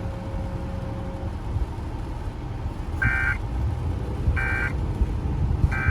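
Emergency Alert System end-of-message signal: three short bursts of SAME digital data tones, each about a third of a second long and about a second apart, over a low steady hum.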